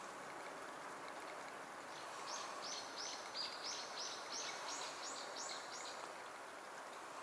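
A small bird sings a quick run of about a dozen repeated high chirps, roughly three a second, starting about two seconds in and stopping near the end, over a steady hiss of outdoor ambience and running water.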